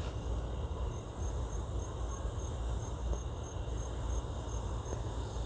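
A cricket chirping steadily, about three chirps a second, over a low steady rumble.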